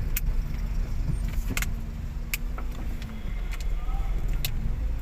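Steady low vehicle rumble with a few sharp clicks.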